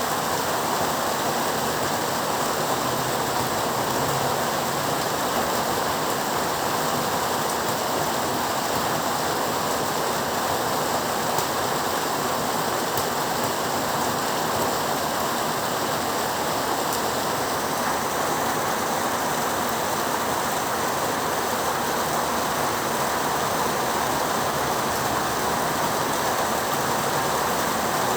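Heavy rain falling steadily, an even rushing noise.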